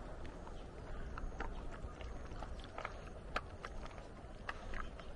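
Dogs chewing jerky treats: irregular small clicks and crunches of teeth on the dry jerky.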